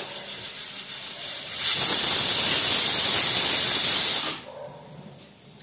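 Pressure cooker whistling: a loud hiss of steam blasting out of its weight valve, starting under two seconds in, lasting about two and a half seconds and cutting off sharply. Before it there is the steady sizzle of whole spices frying in hot oil. This is the cooker's second whistle.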